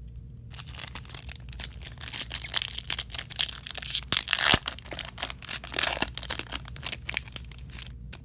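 Foil wrapper of a trading-card pack crinkling and tearing as the pack is ripped open, a dense crackle that starts about half a second in and stops just before the end.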